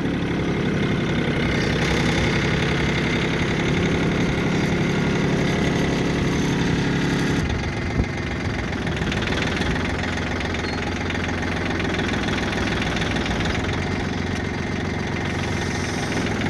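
Engine running steadily at idle, settling to a lower, quieter note about seven and a half seconds in, with a single sharp knock just after.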